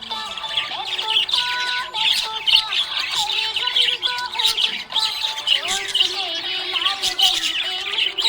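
Budgerigar warbling and chirping continuously, a dense run of quick chirps and short squawks with some longer held notes mixed in.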